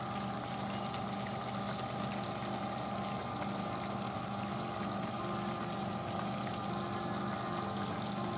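Chicken stew simmering in a pan, a steady bubbling hiss over a low steady hum.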